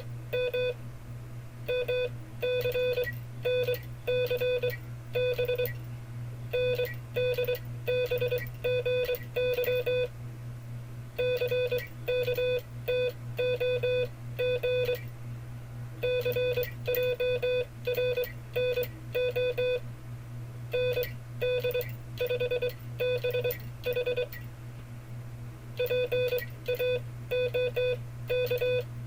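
Morse code sent as a single steady tone of about 500 Hz, keyed on and off in rapid dots and dashes. The five-character cipher groups are separated by pauses of about a second, over a steady low hum.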